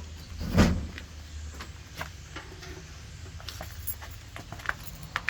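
A single heavy thump about half a second in, then scattered light clicks and taps over a fading low hum.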